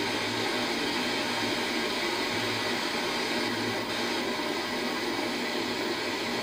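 Steady static hiss from a 1985 Emerson portable TV's speaker, tuned to a UHF channel with no station on it.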